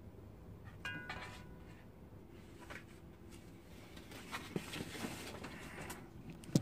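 A metal utensil clinks against a plate about a second in and rings briefly, followed by soft rustling and a few light knocks as a plate of food is handled.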